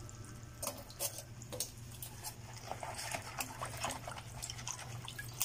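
Live crabs in basins of water: irregular small clicks and crackles of shell and water over a steady low hum.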